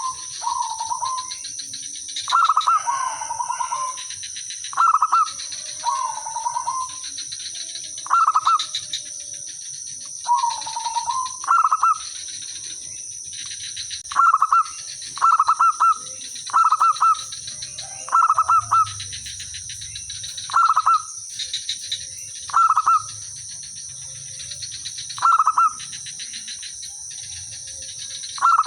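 Zebra doves singing: short bursts of rapid staccato cooing notes repeated every second or two, some phrases ending in a wavering trill, one bird calling and others answering.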